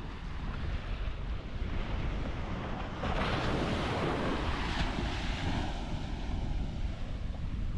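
Surf washing on a beach, with wind buffeting the microphone as a steady low rumble. About three seconds in, a louder rush of breaking surf lasts a couple of seconds.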